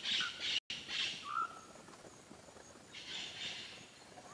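Insects chirping in an even pulse of about three a second, with short whistled bird calls. The chirping fades about a second in and comes back briefly a little after three seconds.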